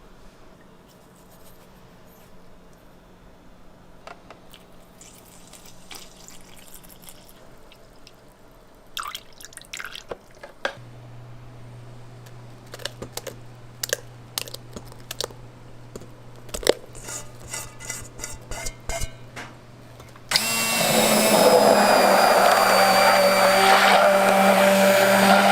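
Light kitchen clatter of scattered clicks and knocks over a low hum. About twenty seconds in, an electric kitchen machine's motor starts suddenly and runs loud and steady.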